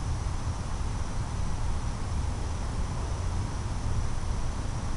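Steady outdoor background at dusk: a low rumble under a faint, high, unbroken chirring of crickets.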